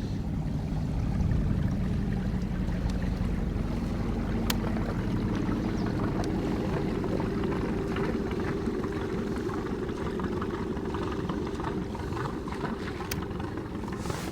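A boat's motor running steadily: a continuous low hum, with a few faint clicks.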